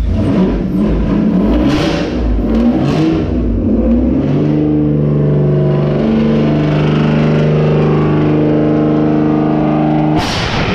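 Mercedes SL600's V12 engine running loud after being started: rough and uneven for the first few seconds, then about four seconds in it settles into a steady, even note, and it cuts out suddenly near the end.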